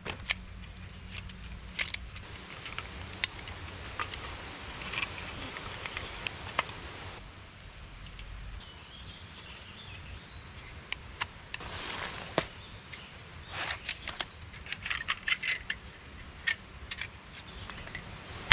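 Takedown bucksaws being assembled by hand: scattered sharp clicks, taps and light metallic clinks as the wooden frame pieces and saw blade are fitted together, with a few quick runs of clicks later on.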